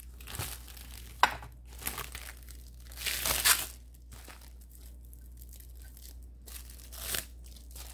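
Packaging crinkling and rustling as items are handled, in several short spells with a sharp click about a second in; the loudest and longest rustle comes about three seconds in.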